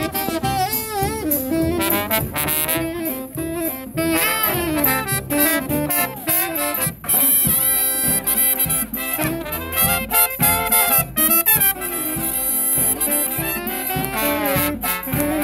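Brass marching band of trumpets, saxophones, trombones and sousaphones with drums, playing a tune live, with many sliding and wavering notes over a steady drum beat.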